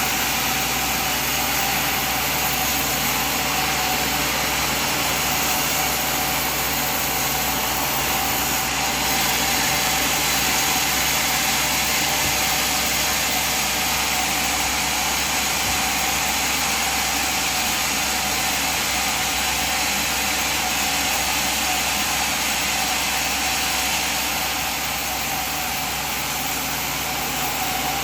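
Sawmill machine running steadily, a constant mechanical hum with a slight drop in level near the end.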